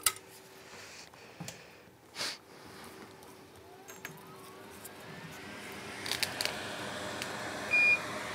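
Bench noises: a few sharp clicks and taps, a faint rising whine in the middle as a steady hiss builds, and a short high electronic beep near the end.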